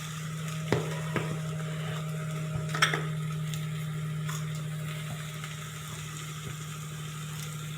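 Onions, peas and green chilli frying in oil in a pan, stirred with a spoon that clicks against the pan a few times, mostly in the first three seconds. A steady low hum runs underneath.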